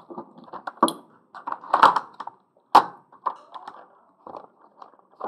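Handling noise: irregular light clicks and knocks of small objects being moved about on a table. The two loudest come about two and three seconds in.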